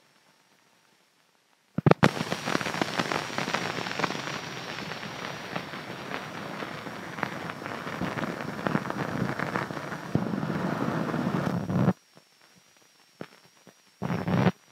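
Dense crackling and popping noise that starts abruptly about two seconds in and cuts off sharply about ten seconds later, with a second short burst near the end: the optical soundtrack of dusty, scratched film leader running out at the end of an old film reel.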